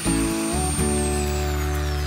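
Background music over the high whine of a Bosch electric drill boring into wood. The whine falls slowly in pitch as the drill winds down.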